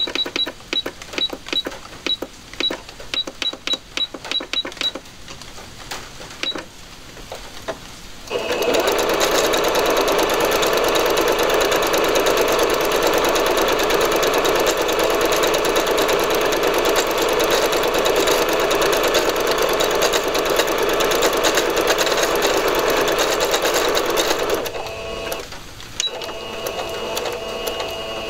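Singer Patchwork 7285Q computerized sewing machine. First comes a quick run of short high beeps and clicks from its stitch-selection buttons. After a pause of a few seconds the motor starts and the machine sews a decorative stitch at a steady speed for about sixteen seconds, then runs more softly and stops near the end.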